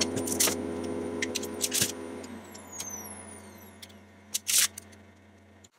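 Plastic clicks and rattles from a handheld RC transmitter being handled while its batteries are loaded: a few sharp clicks, the loudest about four and a half seconds in. Underneath, a steady low hum fades out over the first couple of seconds, with a faint falling whine high up.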